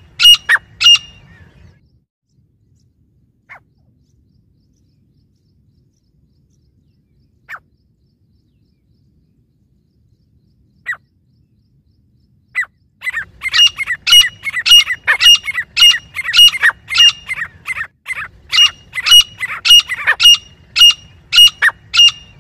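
Grey francolins calling: loud, shrill repeated calls, then a long lull broken by a few single calls, then a fast unbroken run of calls over the last nine seconds.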